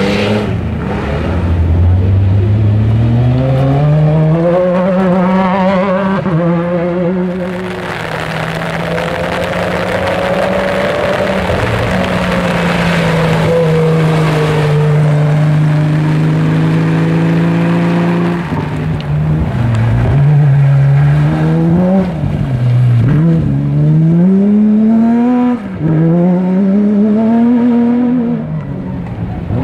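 Off-road race cars' engines revving hard. The engine note climbs early on, holds high and steady through the middle, then rises and drops repeatedly in the last third as the drivers shift and lift off.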